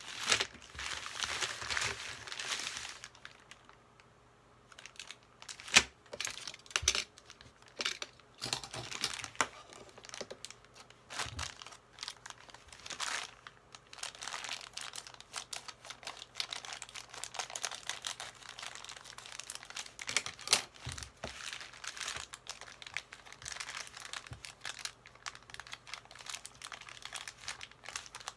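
Plastic packaging crinkling and rustling as a set of keycaps is unwrapped, with scattered sharp clicks and a brief lull about four seconds in.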